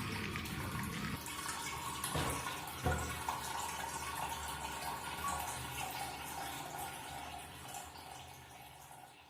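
Water running and splashing in a toilet flush tank, with two light knocks a couple of seconds in, fading out near the end.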